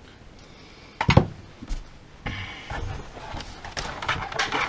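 A sharp knock about a second in, then scraping and rustling with small clicks as a DJI Phantom quadcopter is worked out of its moulded pulp-fibre box insert.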